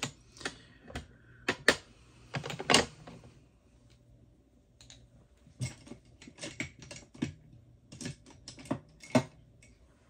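Irregular clicks and taps of small makeup containers and caps being handled, in two clusters with a short pause between them.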